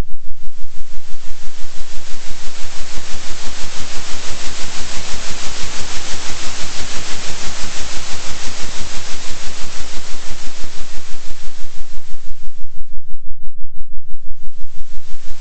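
Electronically generated noise, a steady hiss over a low hum, swelling and fading evenly about three times a second: a 3 Hz oscillating tone track. The upper part of the hiss drops away briefly near the end.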